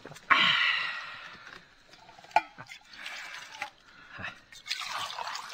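Liquid poured from a pottery jug into cups in three goes. The first pour starts suddenly and is the loudest. There is one sharp knock about halfway through.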